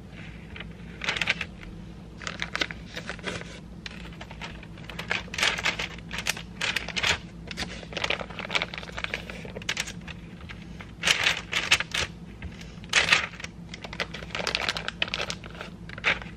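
Clear plastic bag crinkling and parchment paper rustling in irregular bursts as stiff macaron batter is squeezed by hand in the bag and dabbed onto a parchment-lined baking sheet. A steady low hum runs underneath.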